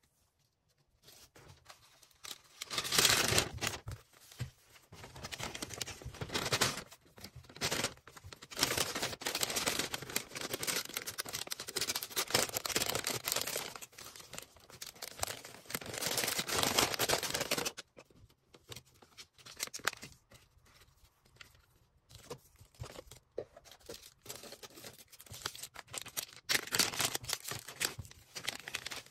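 Hands packing an order: plastic packaging crinkling and rustling, with tearing sounds. Dense handling for the first half, then quieter, scattered rustles with a louder flurry near the end.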